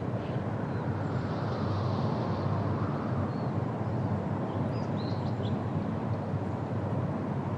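Steady outdoor background rush, with a few faint high bird chirps about halfway through.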